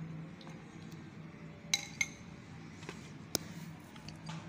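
Utensil clinking against a glass bowl while paste is scooped out: two short ringing clinks close together, then a single sharp tap.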